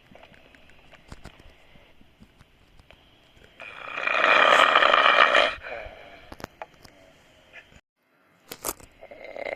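A person snoring loudly: one snore lasting about two seconds in the middle, and the next beginning at the very end. Between them it is quiet apart from a few faint clicks and a brief drop to complete silence.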